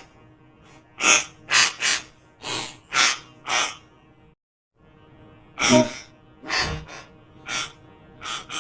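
Crying sound effect put through a robotic voice filter: about a dozen short, breathy sobbing gasps, with a short break just past the middle, over a faint steady hum.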